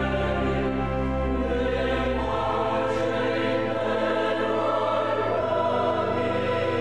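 Choral music: a choir singing long held chords that shift every second or two, with orchestral backing.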